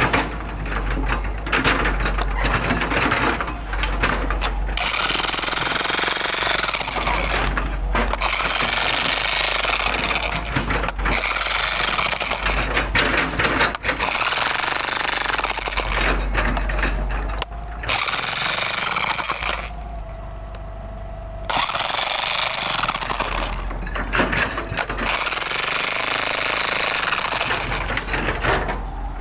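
Jackhammer breaking up hard-packed soil, hammering in long runs with a few brief stops and one longer pause about 20 seconds in, when only a faint steady hum is left.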